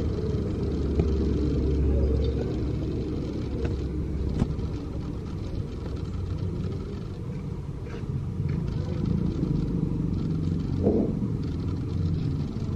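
Steady low rumble of street background noise, with a few faint clicks and knocks.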